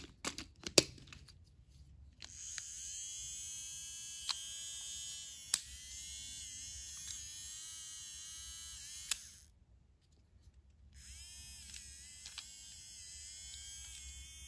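Small electric motor of a motorized toy Thomas train running with a steady high whine after a few handling clicks; it stops for about a second and a half past the middle, then starts again. The motor runs but the wheels don't turn, which the owner suspects is something stuck in the motor.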